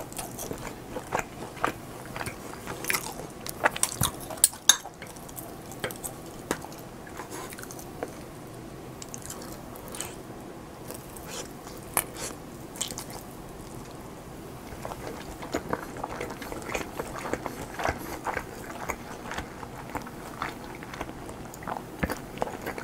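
Close-miked eating sounds: a person biting and chewing food, with irregular sharp mouth clicks, a cluster of louder ones about three to five seconds in and a busier run in the last third.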